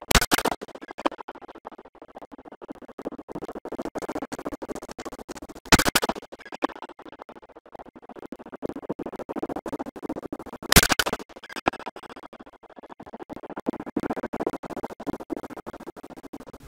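Three shotgun shots about five seconds apart, near the start, about six seconds in and about eleven seconds in, over steady crunching of footsteps in snow and dry weed stalks.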